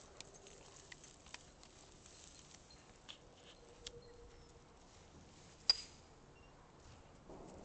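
Faint, scattered light taps and clicks, with one sharper click carrying a brief high squeak near the six-second mark.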